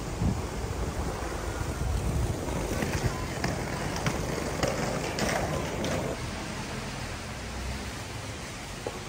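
Wind buffeting the microphone: a steady, rumbling rush, heaviest in the first few seconds, with a few faint taps in the middle.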